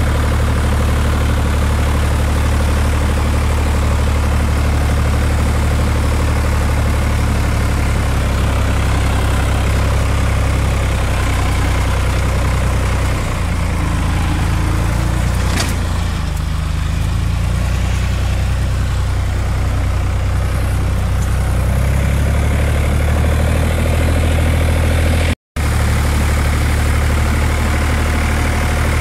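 Massey Ferguson 135 tractor's engine running steadily while driving, with a low, even drone. Its pitch shifts briefly around the middle, and the sound cuts out for a moment near the end.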